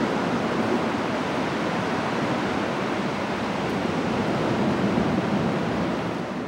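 Steady rush of moving water, like surf, with no distinct splashes, fading near the end.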